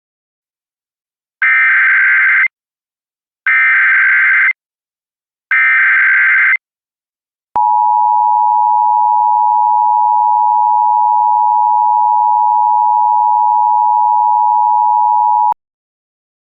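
Emergency Alert System signal: three one-second bursts of SAME header data, a buzzy digital screech, followed by the two-tone attention signal (853 and 960 Hz) held steadily for about eight seconds and cut off abruptly. It is the opening of an EAS broadcast, here carrying a Fire Warning.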